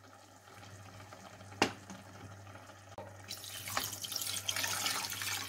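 Water poured into a pot of tomato sauce over fish-stock powder, a steady pour starting about three seconds in. A single sharp knock about a second and a half in.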